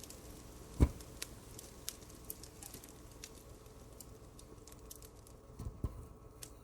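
Fireplace crackling: scattered small sharp pops and ticks over a low steady background. A loud dull thump comes about a second in, and two softer thumps come near the end.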